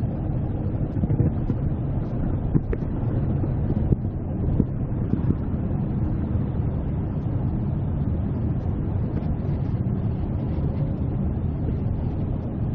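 Inside a Queensland Rail NGR electric train running between stations: a steady low rumble of the wheels on the track, with a few short sharp clicks.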